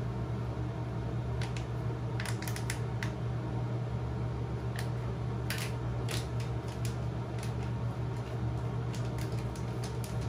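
Crinkling and tapping of a powder sachet being shaken out over a mixing bowl: scattered short crackles and clicks, over a steady low hum.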